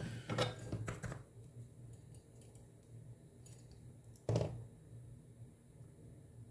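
Small clicks and rattles of tools and wire being handled on an electronics workbench: a cluster in the first second and one sharper click about four seconds in, over a faint steady low hum.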